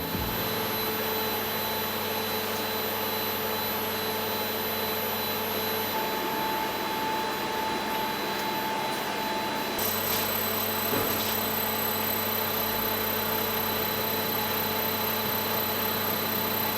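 Electrical machinery on a test bench running steadily: a whirring hum with several constant high whining tones, shifting slightly about ten seconds in.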